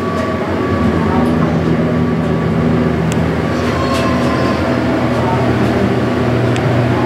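Original US Elevator hydraulic elevator car travelling in its shaft: a steady low mechanical hum that sets in about a second in and holds, with a few faint ticks.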